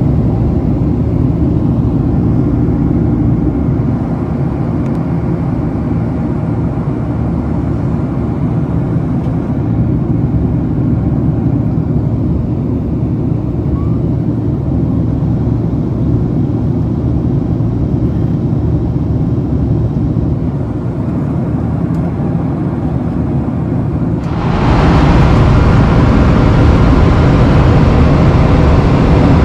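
Steady engine rumble and rushing noise from inside a moving vehicle. About 24 seconds in, it jumps suddenly louder and brighter.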